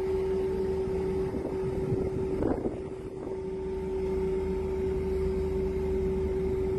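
Boat engine running steadily, a constant hum at one pitch over low rumble, with wind on the microphone. A brief louder rush of noise about two and a half seconds in.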